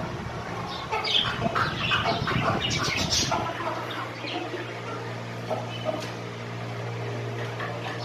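A flock of budgerigars chirping and chattering, busiest in the first three seconds and sparser after. About three and a half seconds in, a steady low machine hum sets in and carries on beneath the birds.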